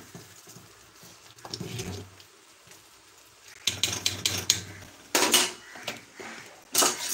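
Metal ladle stirring in a metal pot of thick liquid, then knocking and clattering against the pot in quick runs of sharp clanks from about halfway through.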